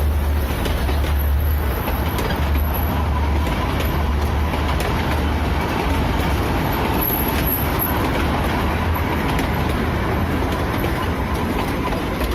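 Neral–Matheran narrow-gauge toy train running, a steady rumble with a constant noise of the moving train.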